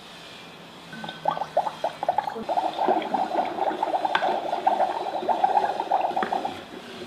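Wooden spoon stirring water in a plastic Magic Mixies toy cauldron: quick, continuous scraping and sloshing that starts about a second in and stops near the end.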